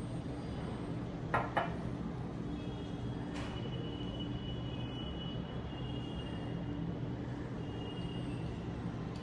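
A steady low hum, like distant traffic or a running appliance, with two quick sharp clicks about a second and a half in and a softer click a couple of seconds later.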